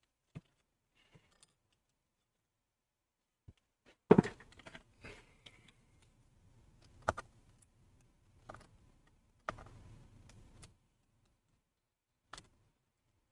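Scattered light clicks and taps with short bits of rustling as thin Wi-Fi antenna cables are wiggled and pushed through a small hole in a MacBook Pro's case, with the sharpest click about four seconds in.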